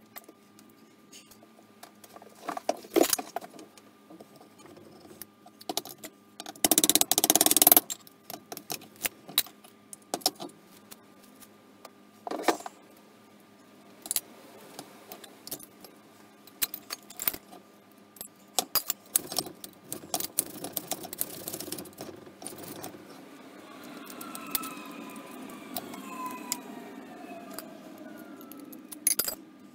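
Small metal carburettor parts and a screwdriver clicking and clinking irregularly as a Holley four-barrel carburettor is taken apart by hand, with a short, louder rushing noise about seven seconds in.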